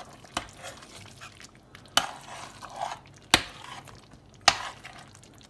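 A serving utensil clinking four times against a pot and plate, with soft scraping between, as rice and smothered chicken with gravy are dished up.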